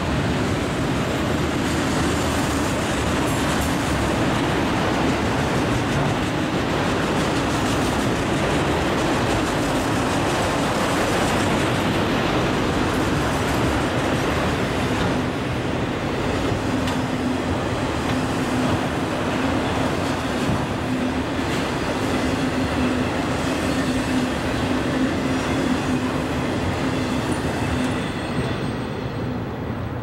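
Freight train of autorack cars rolling past close by: a steady roar of steel wheels on rail, with a constant hum under it. It dies down near the end as the last cars clear.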